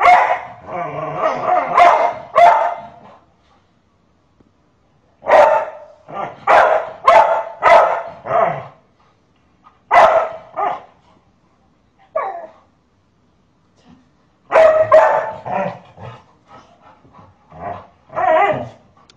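A golden retriever barking in bouts of short, sharp barks with pauses between, directed at a woman who raises her hand toward a child: protective barking.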